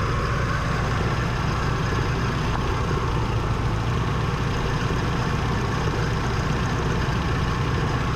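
1977 Chevy C10's engine running steadily, with a misfire.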